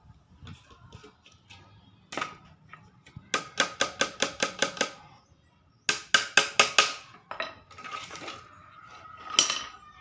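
Small hammer tapping on a wooden bird-cage frame: two quick runs of sharp strikes, several a second, with a light metallic ring, and a few single knocks between and after.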